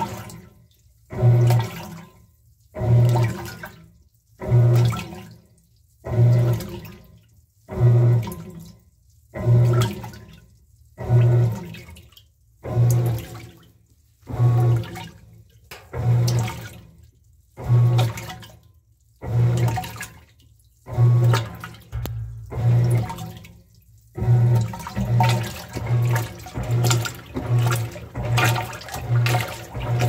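Whirlpool top-load washing machine agitating laundry on its delicates cycle: each wash stroke is a short motor hum followed by water sloshing in the tub, repeating about every one and a half seconds. About three-quarters of the way through, the strokes quicken to shorter ones a little under a second apart.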